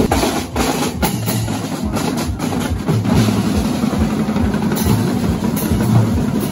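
Marching drumline playing together: snare drums, bass drums and hand-held crash cymbals beating a rhythm.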